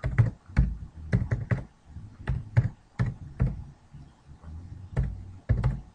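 Typing on a computer keyboard: irregular key clicks, a few to several a second, with short pauses between runs.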